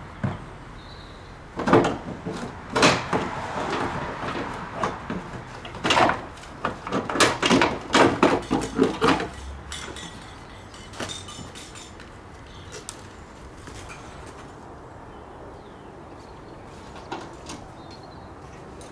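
Knocks and clatters of hand work on a car's front corner as parts are reconnected and the wheel is refitted. There are a few sharp knocks about two and three seconds in and a busier run of them from about six to nine seconds, then it goes quieter.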